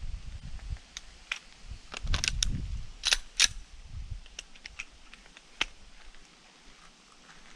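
Sharp metallic clicks and clacks of a Glock 34 pistol being handled and loaded: a couple of louder clacks about three seconds in, then a scatter of lighter ticks and one more click a little later.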